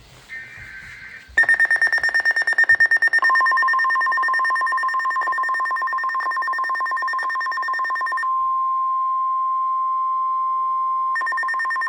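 Emergency Alert System signal for a severe thunderstorm warning. A short buzzy digital data burst is followed by a loud, fast-pulsing high beeping alarm from about a second and a half in, joined about three seconds in by a steady lower warning tone. The beeping stops about eight seconds in, leaving the steady tone alone, and resumes near the end.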